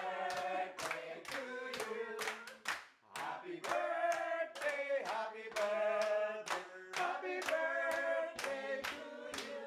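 A small group of men and women singing together, clapping their hands in time, with a short break between sung lines about three seconds in.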